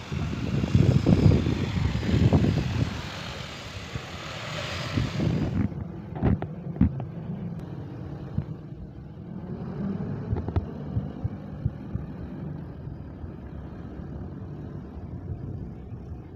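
Large agricultural spraying drone's rotors whirring as it flies, with gusty buffeting on the microphone over the first few seconds. About a third of the way in the sound drops abruptly to a quieter, steady hum with a few scattered clicks.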